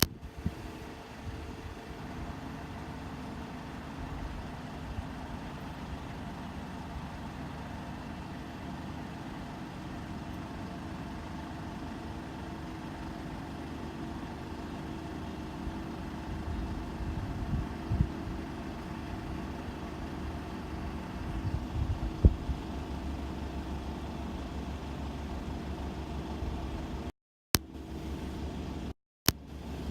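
Engine of a Kubota 128-horsepower six-row combine harvester running steadily, with two sharp knocks in the second half. The sound cuts out completely twice near the end.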